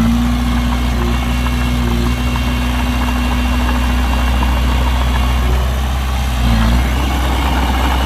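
Heavy diesel engine of earthmoving machinery running steadily, its note shifting briefly about six and a half seconds in.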